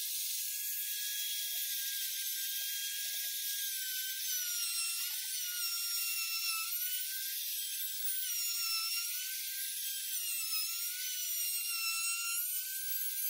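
Compact wood router running at full speed with a steady high whine; from about four seconds in its pitch dips and recovers again and again as the bit bites into the edge of the wooden board under load.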